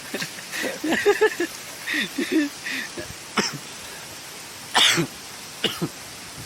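A person coughing and clearing their throat. There are short vocal sounds at first, then a few harsh coughs, the loudest about five seconds in.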